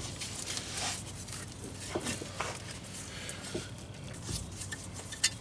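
Scattered light metallic clicks and scrapes as a new front wheel hub is worked onto the CV axle splines, with a dull thump about four seconds in and a sharp click near the end.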